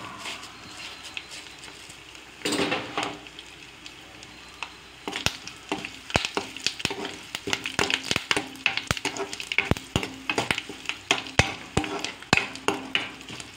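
Tadka of dried red chillies, curry leaves and turmeric sizzling in hot oil in a kadai. From about five seconds in, a spoon stirs it, clicking and scraping against the pan many times.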